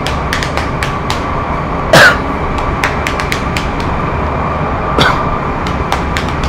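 A loud, exaggerated fake cough about two seconds in and a shorter one near five seconds, over the steady rumble and whine of a moving metro train car.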